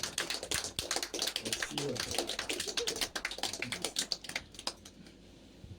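Rapid, irregular clicking and tapping with faint voices underneath, thinning out and going quiet about four and a half seconds in.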